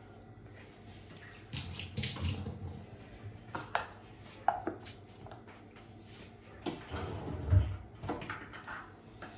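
Kitchen dishes and utensils being handled: scattered light clinks and knocks with a few dull thuds, the loudest thud about three-quarters of the way through.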